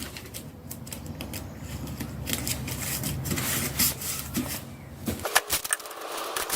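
Masking tape being pulled off the roll and pressed in under a wheel rim's lip onto the tyre: an irregular run of small clicks, crackles and rubbing.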